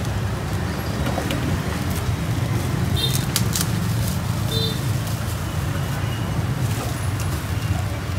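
Steady low rumble of street traffic, with a few light clicks and taps, mostly about three seconds in.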